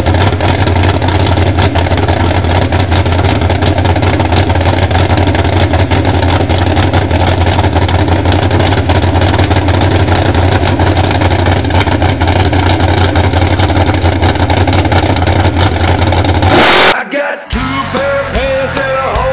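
Mud drag race car's engine running steadily through open exhaust headers while being warmed up. About sixteen and a half seconds in, it gives a brief full-throttle blast as it launches. Rock music takes over for the last couple of seconds.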